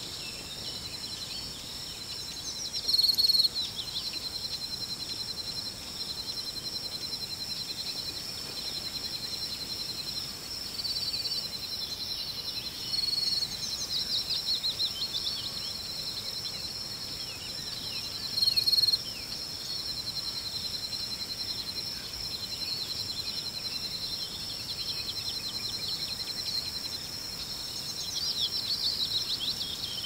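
Crickets trilling steadily in a high, unbroken chorus, with birds singing over it in short bursts of chirps. Two brief louder calls stand out, about three seconds in and again a little past halfway.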